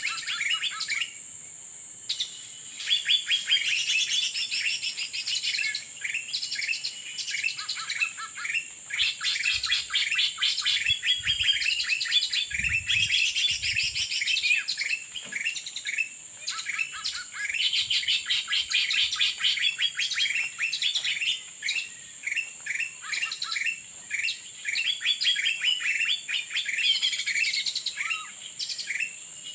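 Small songbirds chirping in rapid, dense runs of short notes that come in bouts and break off briefly every few seconds, over a steady high-pitched whine.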